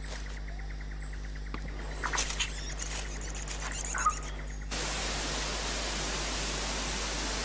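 Quiet wildlife ambience with a few faint chirps and clicks, which cuts about five seconds in to a steady, even hiss.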